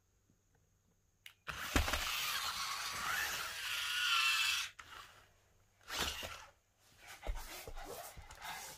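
Toy remote-control stunt car's electric motors whirring with a wavering whine as it drives, in bursts: one long run of about three seconds starting a second and a half in, then shorter bursts near the end.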